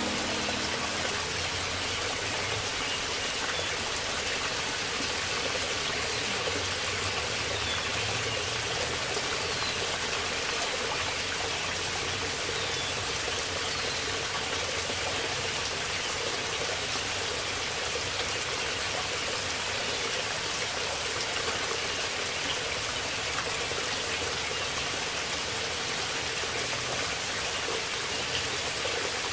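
Steady rush of water from a small mountain waterfall cascading over rock, an even, unbroken hiss.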